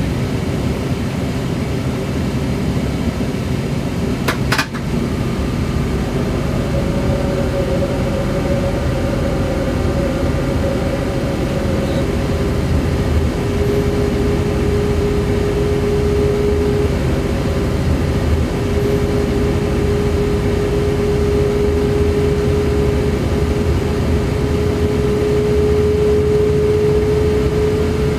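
Train running at speed on the high-speed line, heard from the driver's cab: a steady rumble and rush of running noise, with a sharp knock about four and a half seconds in. A steady whine comes in after about six seconds and settles a little lower in pitch partway through.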